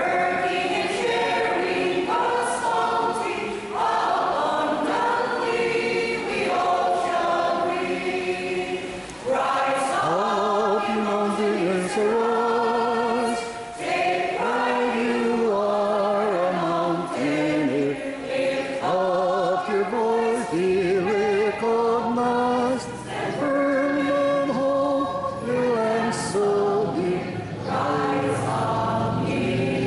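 A choir of women and men singing a song together in several voices, phrase after phrase with short breaks between.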